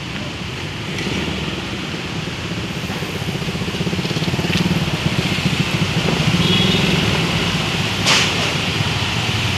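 Traffic driving through floodwater on a city road: engines running and tyres swishing through water. It grows louder about halfway through as a motorcycle and an SUV pass close, and there is a brief sharp click near the end.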